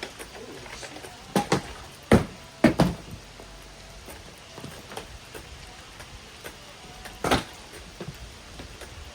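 A run of loud knocks and thuds from hard objects striking and clattering: a pair about a second and a half in, the loudest cluster of three just after two seconds, then a single hit near the end.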